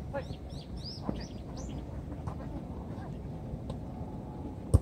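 Sneakers squeaking on a futsal court in quick, short chirps over the first couple of seconds, over the steady low noise of the court. Near the end comes a single sharp thump, the loudest sound, the ball being kicked.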